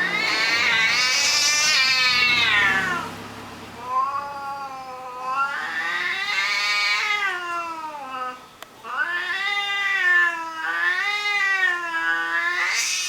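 Male cats caterwauling in a territorial standoff: several long, wavering yowls that rise and fall in pitch, each lasting a few seconds, a younger tomcat's loud threat calls at a neighbour's tomcat that keeps attacking him.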